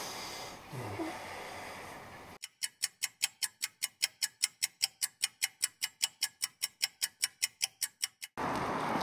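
Clock ticking effect: a fast, even run of sharp ticks, about five or six a second, that starts a couple of seconds in and cuts off abruptly near the end, marking time passing. A steady hiss then takes over.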